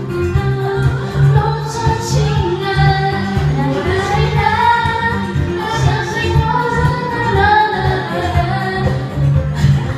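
Women singing karaoke into microphones, their voices amplified over a backing track with a steady beat and bass line.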